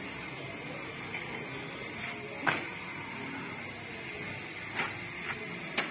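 Steady hiss of a roti cooking on an iron tawa over a gas stove, with a few sharp taps, the loudest about two and a half seconds in.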